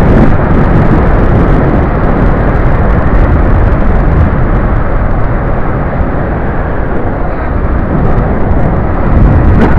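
Steady, loud wind rush and road rumble on a helmet-mounted camera as a motorcycle rolls along, with no clear engine note.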